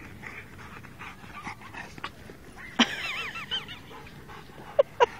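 Bullmastiff dogs panting and whining, with a quick wavering whine about three seconds in and a few short sharp yips near the end.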